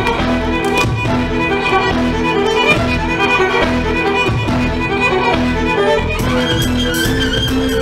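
Live violin and erhu playing a Chinese-style melody in held and moving bowed notes over a repeating low accompaniment.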